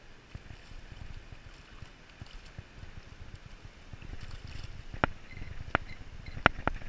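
A small hooked trout splashing and thrashing at the water's surface, four or five sharp splashes about half a second apart in the second half, over a low wind rumble on the microphone.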